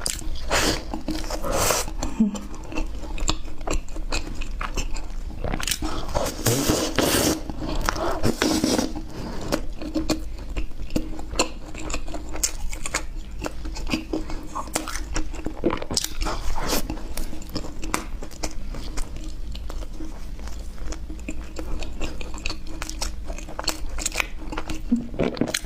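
A person biting and chewing chocolate ice cream bread close to the microphone, with a steady stream of small crunches and clicks; it gets louder about a second in and again about six seconds in. A low steady hum sits under it.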